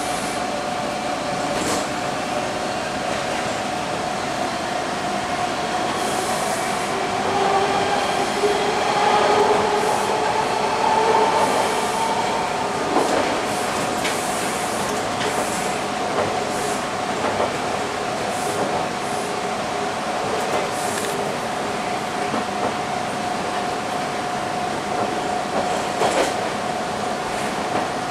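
TTC T-1 subway train running on open track, heard from inside the train: a steady whine over rumbling rail noise. It grows louder with shifting tones from about 8 to 12 seconds in, and there are a few sharp clicks from the wheels and track.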